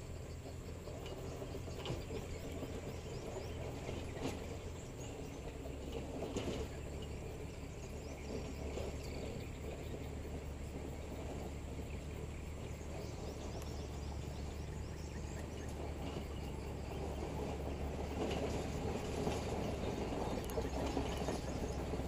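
Caterpillar 120H motor grader's diesel engine running under load as it moves forward, with the rough crunch and scrape of its blade spreading loose rock and soil. A few sharp knocks come in the first seven seconds, and the engine note shifts about five seconds in.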